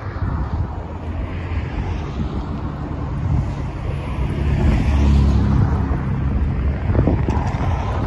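Wind buffeting the microphone in an uneven rumble over the hiss of car traffic on a multi-lane road, with a car's tyre hiss swelling and fading over the first few seconds.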